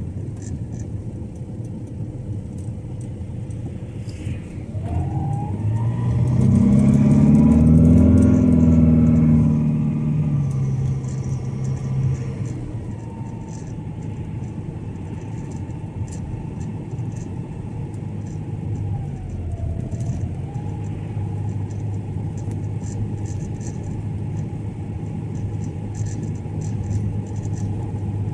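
A car driving, with steady engine and tyre rumble. A louder engine note climbs and then falls away between about five and ten seconds in, after which the car runs steadily again.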